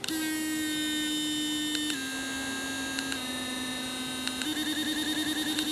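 Fairywill sonic electric toothbrush running, a steady buzzing hum. Its pitch drops slightly after a click about two seconds in, and it turns to a rapid pulsing near the end as the brush is switched through its cleaning modes.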